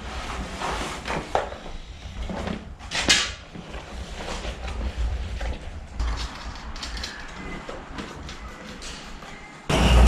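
Hand-handling noises of a knobbly bicycle tyre being worked onto a spoked wheel rim: irregular rubber rubbing and small clicks, with one sharp snap about three seconds in. Music starts abruptly near the end.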